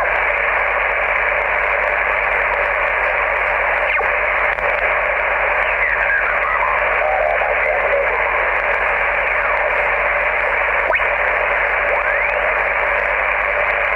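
ICOM IC-718 HF transceiver's loudspeaker giving a steady hiss of 40-metre band noise, a mush at about S8, with faint single-sideband voices sliding in pitch as the tuning dial is turned. The signals are very hard to read in the noise.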